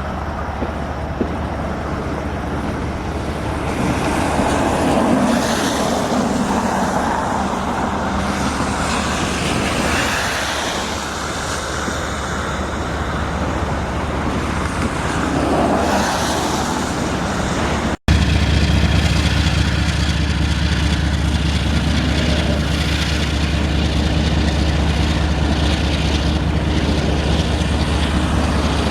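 Motor vehicles going by in swells, three times. After an abrupt cut, a steady, low engine drone with an even hum.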